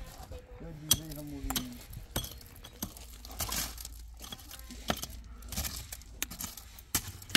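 Wooden-handled pick being swung into gravel and dirt in a series of sharp strikes, roughly one every half-second to second, with the stones clinking and scraping at each blow.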